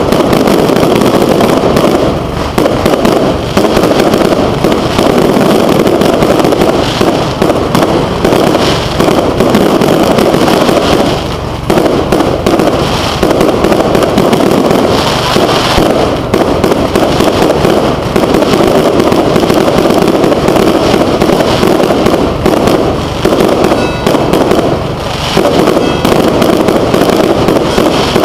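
Aerial fireworks display: a loud, dense, almost unbroken barrage of shell bursts and crackling bangs, with brief lulls about eleven seconds in and again near twenty-five seconds.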